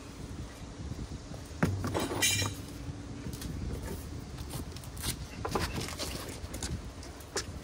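Scattered clinks and knocks of metal tools and parts during brake work. One ringing metallic clink comes about two seconds in, and single knocks follow near the middle and near the end.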